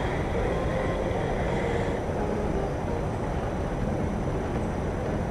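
Wind buffeting the microphone: a steady, rumbling rush that flutters irregularly in the low end.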